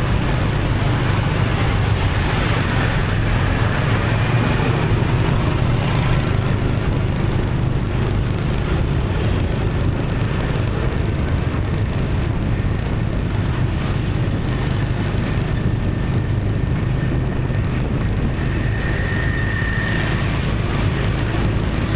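Road traffic heard from a moving motorbike: engines and tyre noise running steadily, with a brief high tone near the end.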